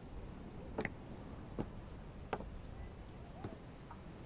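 Faint footsteps at a slow, even walking pace, about one short knock every three-quarters of a second, over quiet outdoor background.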